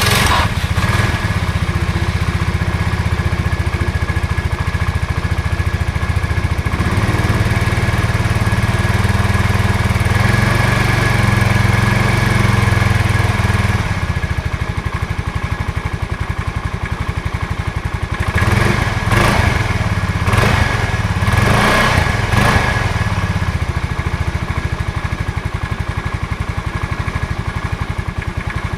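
Automatic motor scooter's engine running just after an electric start, with a slightly faster stretch early on that settles back to idle. About two-thirds of the way through come several short blips of the throttle, each a quick rise and fall in engine speed, before it idles steadily again.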